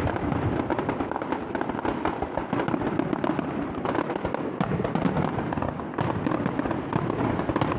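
Fireworks barrage: many shells bursting in quick succession, dense overlapping bangs and crackling without a break, as at the finale of a display.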